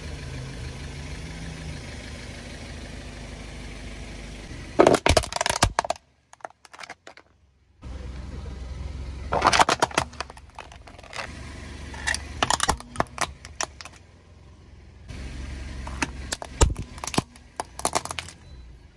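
A car tyre rolling over and crushing brittle plastic objects: several bursts of crackling and snapping, the loudest about five seconds in and around ten seconds in. A car engine idles underneath.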